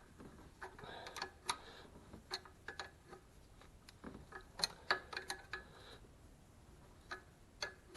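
Light, irregular metallic clicks and taps of spanners working on a clutch-pipe compression fitting as it is tightened, coming in small clusters with short pauses between.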